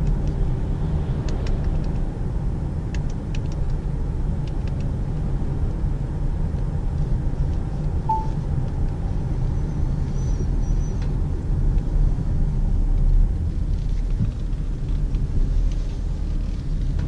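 Steady low road and engine rumble heard inside the cabin of a 2019 Ford S-MAX AWD with PowerShift gearbox, on the move.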